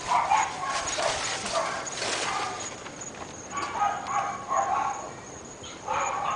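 Several dogs barking over and over in quick, overlapping runs, with short lulls between the runs.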